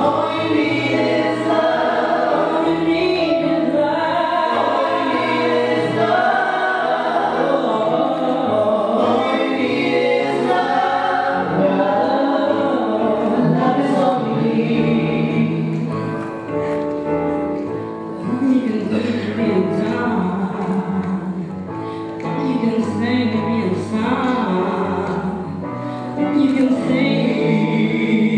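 Music: a choir singing, with long held notes.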